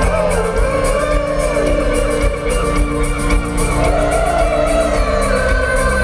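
Live rock band playing an instrumental passage on guitar, keyboards and drums, with notes sliding up and down about a second in.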